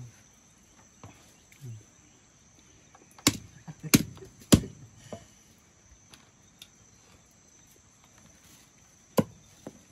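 A large knife chopping ginger root on a wooden stump block: three sharp chops in quick succession near the middle and another near the end. A steady high insect buzz runs underneath.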